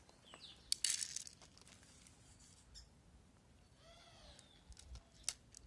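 Cats eating dry kibble off plates, with a short loud crackle about a second in and scattered clicks. Near four seconds a cat gives one meow that rises and falls.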